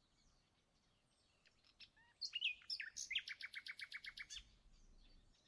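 Quiet bird chirping: a few short whistled notes, then a rapid trill of about ten notes a second lasting just over a second.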